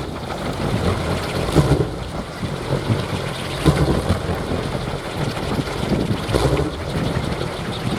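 Large teak-wood kolecer, Sundanese wind propellers on poles, spinning in strong wind with a continuous rumbling drone that swells and eases in surges every second or two. Wind buffets the microphone.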